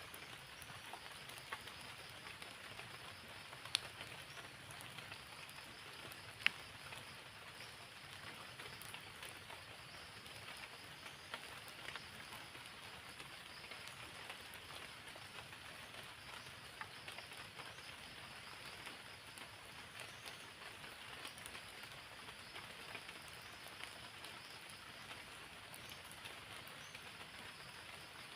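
Steady rain falling, a constant patter of many small drops. Two sharp ticks stand out, about four and six and a half seconds in.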